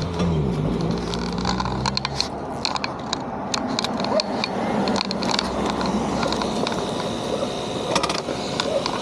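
Yamaha YZF-R1 engine with an aftermarket GP exhaust dropping in revs and running briefly at a steady low note; about two seconds in the engine note dies away, leaving a steady noise with many sharp clicks and rattles.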